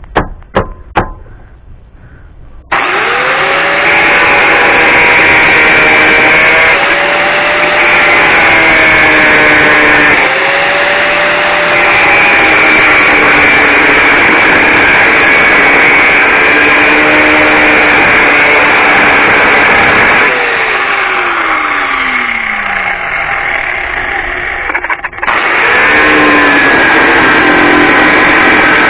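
A few sharp knocks, then an electric power cutting tool starts about three seconds in and runs loud, its pitch sagging and recovering as it cuts through the worn door hinge pins of a 1999 Chevy Silverado. About twenty seconds in it winds down with a falling whine, a click follows, and it starts up again.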